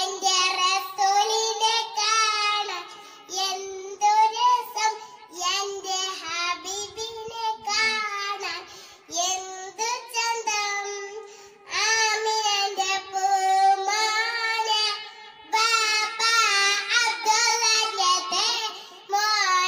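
Young girl singing a Mappila song (ishal) into a handheld karaoke microphone, with no instruments, in sustained phrases with a wavering pitch and short breaks for breath.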